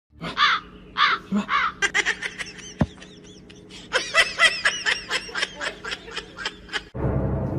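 High-pitched giggling laughter in short arching bursts: a few spaced ones at first, then a quick run of them about halfway through that stops abruptly.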